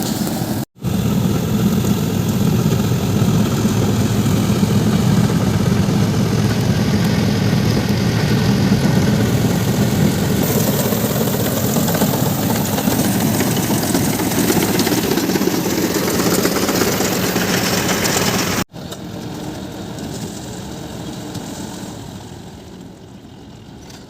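Large paddy combine harvester's engine running steadily under load as it cuts rice. About nineteen seconds in the sound drops abruptly to a quieter level and grows fainter toward the end.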